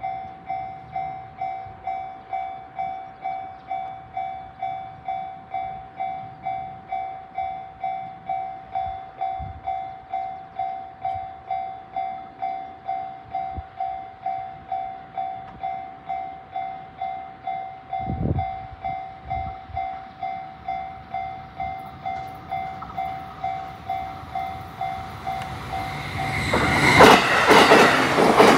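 Japanese level-crossing alarm bell ringing steadily, about two strokes a second. A train approaches and passes over the crossing in the last couple of seconds, its running noise rising until it covers the bell.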